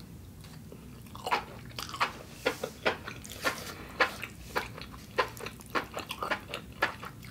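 A person chewing a mouthful of noodles close to the microphone: wet mouth clicks and smacks, roughly two a second, starting about a second in.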